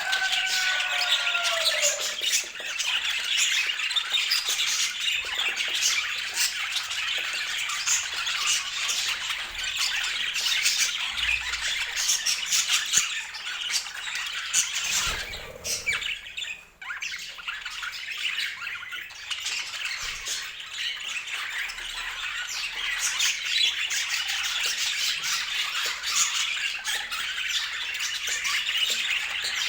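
A group of budgerigars chattering and squawking continuously in a dense jumble of short chirps, with a brief lull around the middle.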